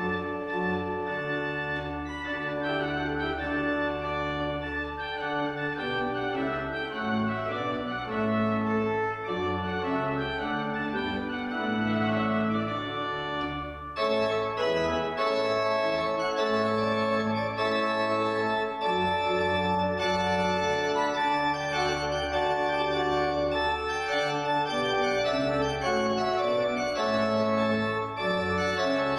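Organ playing sustained chords over held bass notes as a postlude after the closing blessing; the sound grows fuller and brighter about halfway through.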